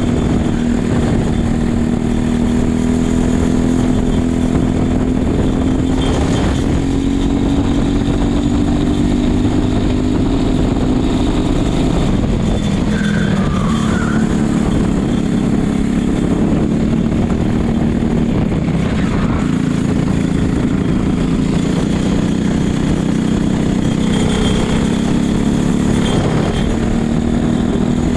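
Racing kart engine running hard at speed, its drone sagging in pitch about twelve seconds in as the kart slows through a corner and climbing again as it accelerates out.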